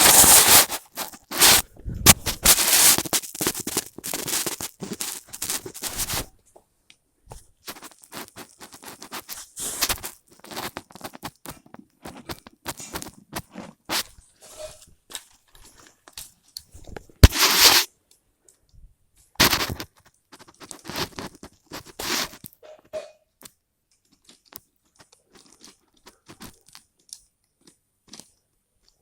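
Irregular clicking, scraping and crackling of things being handled, dense for the first few seconds, then sparser with a few louder bursts midway.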